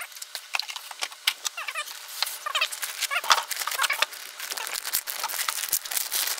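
Black foam packing blocks squeaking as they rub against each other and the cardboard box while being pulled apart, with cardboard rustles, taps and knocks. The short squeaks come mostly in the first half; after that it is mostly rustling and knocks.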